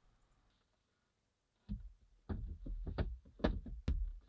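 Plastic glove box of a 2008 Dodge Avenger knocking and clicking against the dashboard as it is handled and fitted back onto its mounts. It starts quiet, then a rapid string of knocks and clicks begins after about a second and a half.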